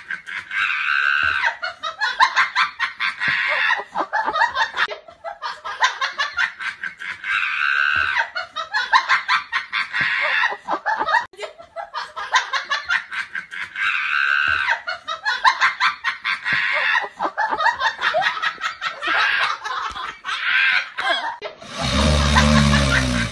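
A recorded laugh looped over and over, the same stretch coming round about every five and a half seconds. Near the end it gives way briefly to a different, low-pitched sound.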